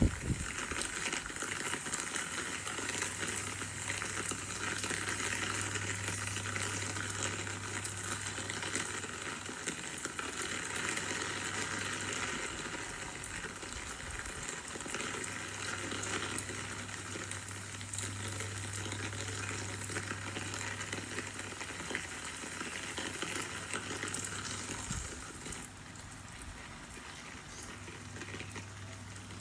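Steady rain falling, an even hiss over a low steady hum, a little quieter for the last few seconds.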